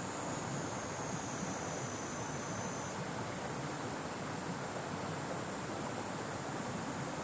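Small shallow stream running over stones with a steady rushing babble, a little stronger than a trickle. Cicadas buzz steadily high above it, and a second, slightly lower buzzing tone joins for about two seconds near the start.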